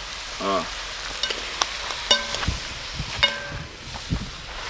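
Metal spoon stirring vegetables in a steel pot over a steady sizzle. The spoon clinks against the pot several times, and each clink leaves a short ringing tone.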